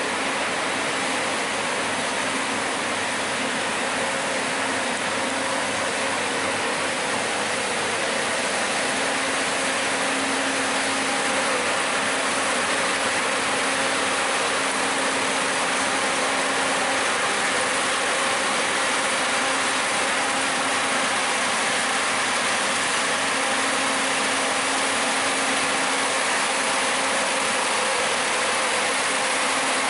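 Biodiesel cog-railway locomotive running as it rolls slowly along the track, its engine sound steady and growing a little louder as it comes closer.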